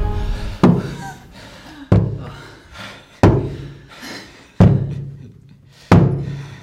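Five heavy thuds, evenly spaced about a second and a quarter apart, each ringing out as it fades.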